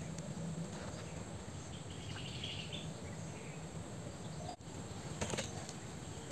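Steady outdoor background noise, with a brief faint high chirp from a bird or insect about two and a half seconds in and a few faint clicks near the end.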